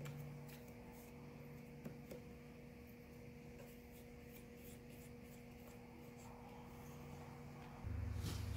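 Faint workshop room tone with a steady low hum, a few light clicks and rubbing of hands on the aluminium cylinder and crankcase. A louder low hum comes in suddenly near the end.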